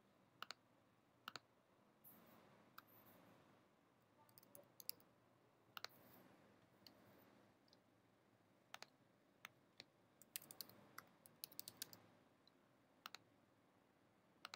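Faint computer keyboard typing and mouse clicks: scattered sharp keystrokes, with a quick run of clicks about ten to twelve seconds in.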